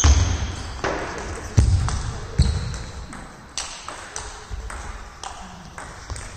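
Table tennis rally: the celluloid ball clicking sharply off the bats and the table about once a second, each hit echoing briefly in the sports hall.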